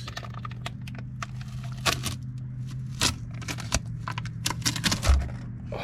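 Irregular sharp metallic clicks and clinks of hand tools and lug hardware being handled while mounting wheels, over a steady low hum.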